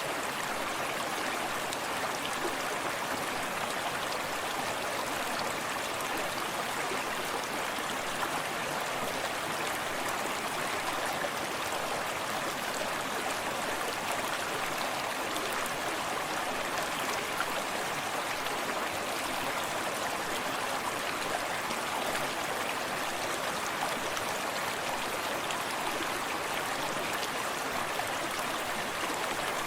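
Forest stream running steadily: water lapping and gurgling over rocks, with the steady rush of a small waterfall, unchanging throughout.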